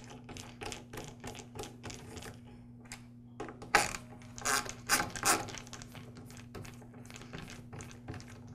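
Screwdriver turning out the screws of a metal cord clamp in a plastic switch housing: a run of quick small clicks, with a few louder clicks about halfway through.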